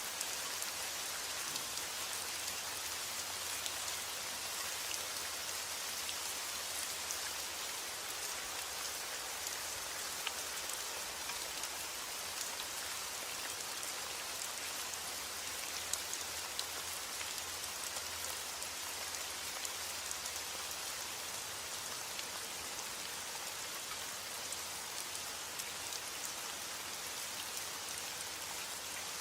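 Steady rain falling: a dense, even hiss of drops with scattered sharper drop hits.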